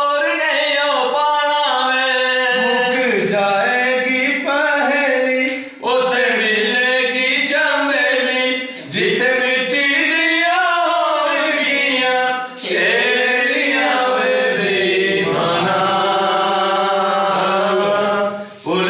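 Two men singing a Punjabi folk song without accompaniment, in long held lines that bend in pitch, with short breaks for breath.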